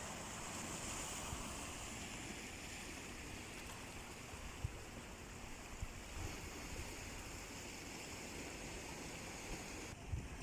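Sea surf washing steadily on the shore, an even rushing hiss, with a few brief low thumps of wind on the microphone.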